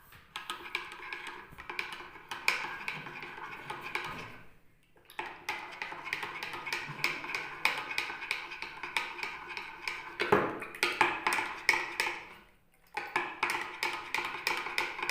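A spoon stirring fast in a cup, clinking rapidly against its sides in three runs with two short pauses, mixing honey into the liquid.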